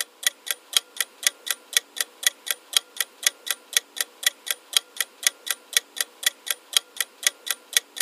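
Ticking-clock sound effect counting down the ten-second answer time, about four even ticks a second.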